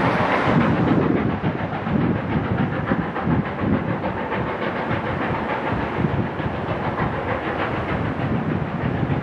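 Narrow-gauge steam train passing along a hillside: steam hiss and exhaust from the locomotive mixed with the wheels of the passenger cars clicking over the rail joints. The sound is steady, a little louder in the first second.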